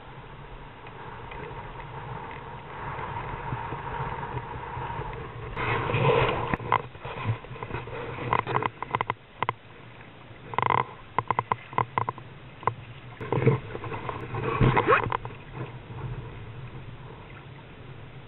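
A landed striped bass thrashing and slapping on the wet sand and in the shallows while being handled: a run of irregular slaps, knocks and splashes starting about five seconds in and lasting roughly ten seconds.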